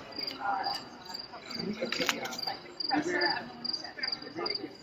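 Crickets chirping steadily, a high pulse repeating a few times a second, with indistinct voices of people talking in the background.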